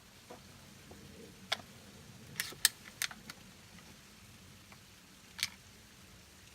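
A handful of small, sharp clicks and taps, about six spread over a few seconds, most of them between about one and a half and three and a half seconds in, typical of handling noise.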